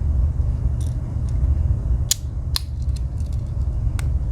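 Blades and tools of a Victorinox Climber Swiss Army knife clicking as they are snapped open and shut, a handful of sharp clicks with the loudest about two seconds in, over a steady low hum.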